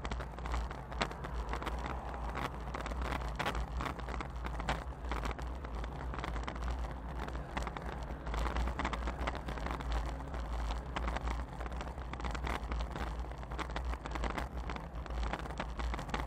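Wind buffeting the microphone of a bike-mounted action camera while riding, with a constant deep rumble of wind and road noise and scattered small knocks and rattles from the camera mount.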